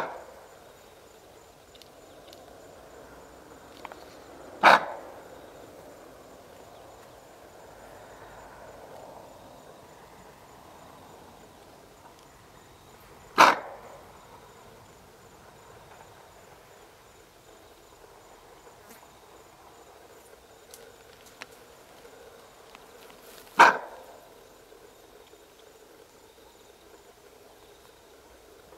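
Bushbuck alarm barks: four single, sharp, dog-like barks spaced several seconds apart, the antelope's warning call on spotting the stalking leopard.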